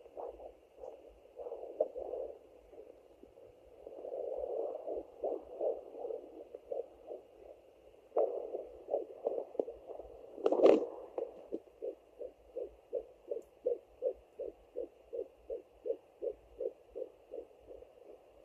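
Sonoline B pocket fetal Doppler speaker playing the swooshing pulses of a heartbeat picked up through the belly, with stretches of swishing noise. About ten and a half seconds in there is a knock, and after it the pulses come very regularly, roughly three a second.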